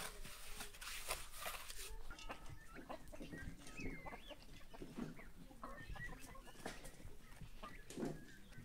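A steel trowel scrapes wet cement mortar for about the first two seconds. Then a farmyard flock of chickens and young turkeys clucks and chirps, with short calls that rise and fall.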